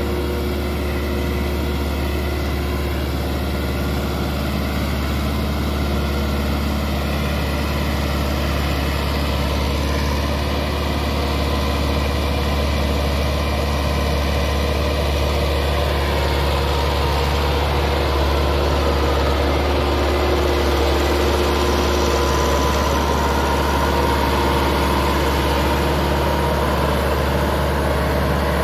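Massey Ferguson 385 tractor's diesel engine running steadily under load, pulling a disc harrow while the new engine is run in. It grows a little louder past the middle as the tractor comes closer.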